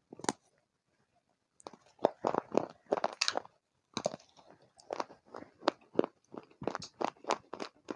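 A person biting into and chewing something hard and brittle, which the title calls a black shale layer, in loud, close crunches. One sharp bite opens, a brief pause follows, then a dense run of crunches and another sharp bite about four seconds in, settling into steady chewing crunches about twice a second.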